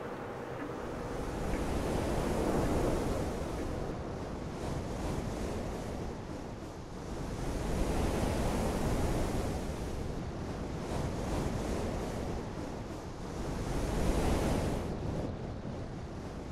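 Rushing noise like surf, swelling and falling back three times, about six seconds apart, with a hissing wash at the top of each swell.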